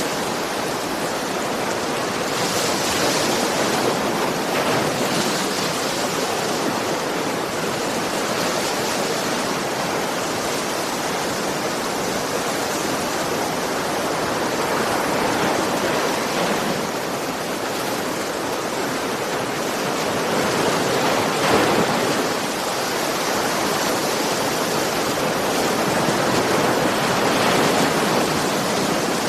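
Ocean waves washing on a shore: a continuous rush of surf that swells and eases every few seconds.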